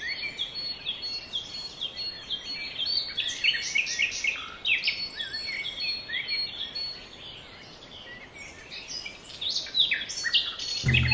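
Small birds chirping and twittering in a busy chorus of short, quick calls, which thins out for a couple of seconds after the middle and picks up again near the end.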